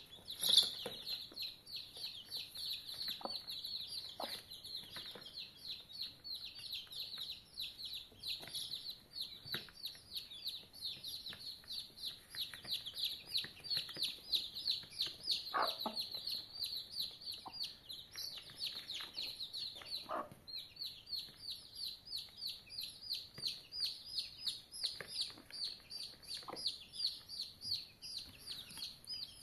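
A brood of young chicks peeping nonstop, many short high cheeps overlapping several times a second, with the mother hen giving an occasional low cluck. A short, sharp, louder sound stands out about half a second in.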